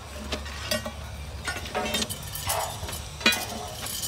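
Irregular metallic clinks of steel pry bars striking a steel rail and its elastic rail clips, about six sharp strikes with short ringing, over a steady low rumble.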